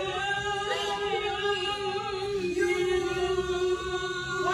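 Singing voices in a choir-like blend, holding two long sustained notes, the second starting about halfway through.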